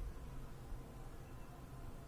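Faint steady background room noise with a low rumble; no distinct sound stands out.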